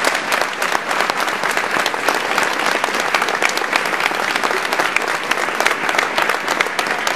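A crowd applauding, many hands clapping at once, in response to the announcement of the winning candidate's vote total.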